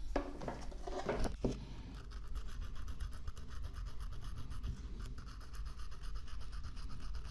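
Hand-work scraping on a small part of the laptop hinge: a louder rough rubbing at first, then fast, even back-and-forth scraping strokes, like scrubbing or filing.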